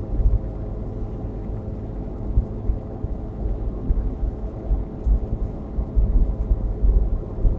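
Steady low rumble of road and engine noise inside a 2016 Nissan Versa's cabin while it drives on the highway, with uneven deeper swells.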